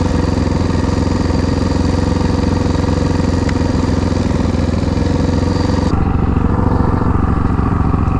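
Motorcycle engine running steadily at an even speed. About six seconds in, the sound abruptly turns duller, losing its treble.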